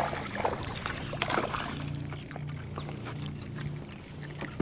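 Steady low hum of an electric trolling motor (Minn Kota Terrova) holding the boat in place on SpotLock, with a run of sharp clicks and knocks in the first couple of seconds as a crappie is reeled up and swung aboard.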